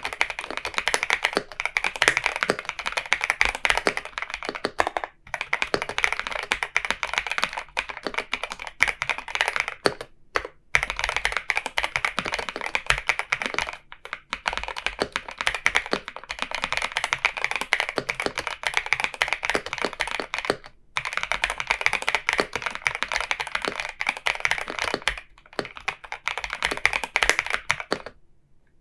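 Continuous fast typing on an Epomaker Shadow-X mechanical keyboard fitted with Epomaker Flamingo switches: a dense stream of keystroke clacks. Brief pauses come every few seconds, and the typing stops shortly before the end.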